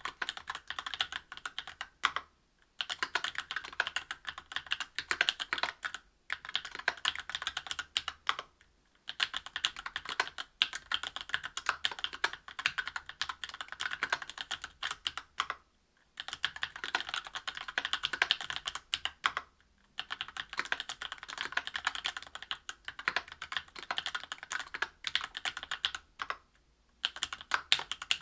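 Typing on a Linworks Special Dolphin mechanical keyboard with lubed Tecsee Oreo 63.5 g linear switches, an aluminium plate and GMK keycaps: rapid keystroke clacks in runs of several seconds, broken by short pauses.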